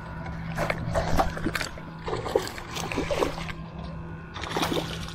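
Water splashing and knocking at irregular moments around a small flat-bottomed skiff, over a steady low hum.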